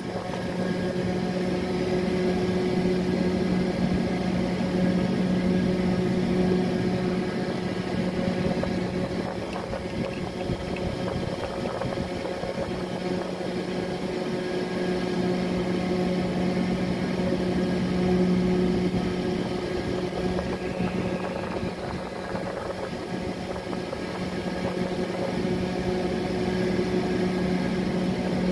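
Steady hum of a small motor running at a constant pitch.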